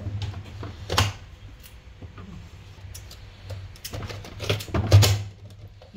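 Hand-press vegetable dicer chopping carrots: the lid is pushed down through the grid blade with plastic clacks and crunches. There is one about a second in and a louder cluster about four to five seconds in.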